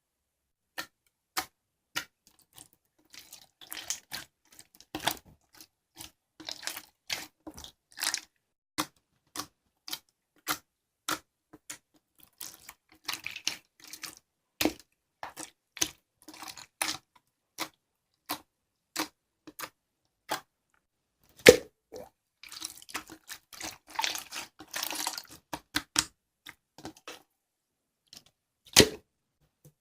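Slime being squeezed and pressed by hand, giving sharp clicking pops about one or two a second, with a few stretches of denser crackling squelch.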